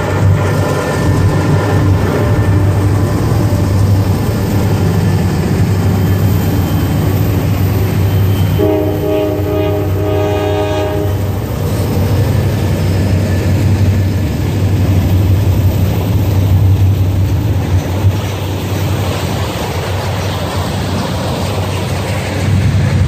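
Freight train rolling past close by, a steady heavy rumble of wagons on the rails. About nine seconds in, a diesel locomotive horn sounds one blast lasting about two and a half seconds.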